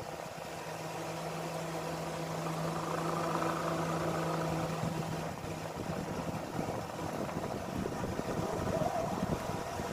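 Steady low hum of a running motor over dining-room background noise; the hum stops about six seconds in.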